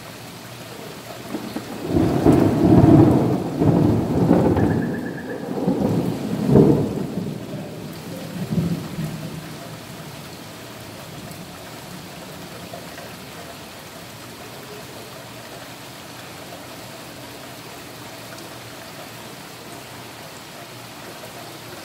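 A roll of thunder rumbling in several swells, starting about two seconds in and dying away by about ten seconds, over steady heavy rain falling on wet pavement and puddles.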